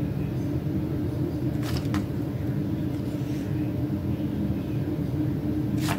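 Steady low hum of unknown source, with short crinkles of paper and sticker sheets being turned about two seconds in and again near the end.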